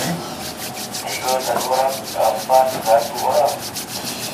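Fast rhythmic rubbing strokes, about five a second, with a few short wavering voice-like sounds in the middle.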